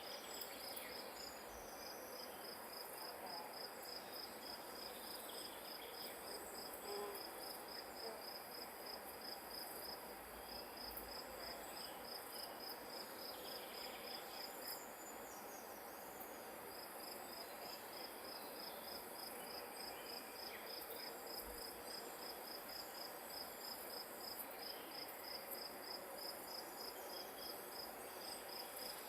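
A grass insect chirping in an even run of high, rapid pulses, stopping for about two seconds midway and then starting again, over a steady outdoor hiss.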